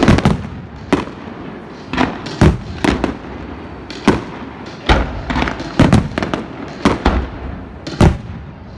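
Aerial fireworks bursting: a string of sharp bangs about once a second, some in quick pairs, each followed by a crackling tail, over a steady hiss.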